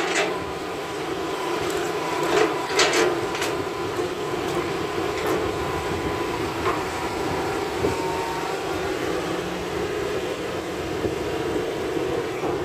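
Crawler excavator's diesel engine running steadily under load while it digs earth and swings the full bucket, with a thin steady whine over the engine. A few sharp clanks and scrapes of the bucket come about two to three and a half seconds in.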